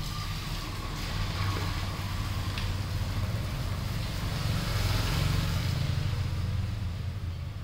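A motor vehicle's engine running nearby, a steady low rumble that grows louder about four to six seconds in as it passes, then fades a little near the end.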